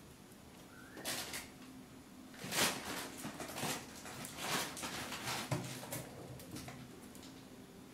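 Ferret scrabbling on the rim of a bathtub: a run of scratchy, rustling scrapes over several seconds, loudest about two and a half seconds in, then fading.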